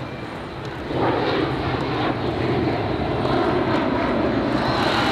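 Jet aircraft engine noise overhead: a steady rumble that swells about a second in and stays up.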